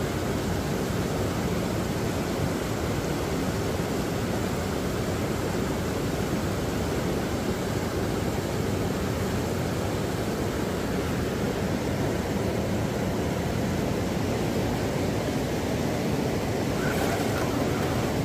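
Steady rushing wind noise on the microphone, even in level throughout, with a short faint click near the end.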